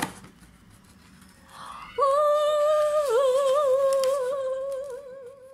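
A voice humming one long high note, starting about two seconds in, held steady for about a second and then wavering up and down before fading out.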